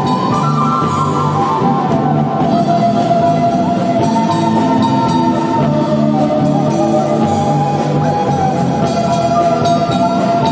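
A band playing a pasillo: a held melody line over guitar and drums, keeping a steady beat.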